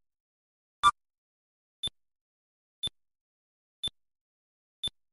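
Short synthesized electronic ticks, one each second, each a brief high blip. Each tick marks a month passing on the timeline, and none of the longer detonation tones fall in this stretch. The first tick, about a second in, is louder and fuller than the rest.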